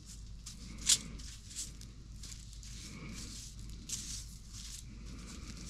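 Panko-breaded perch frying in a pan, sizzling and crackling steadily, with one sharp pop about a second in.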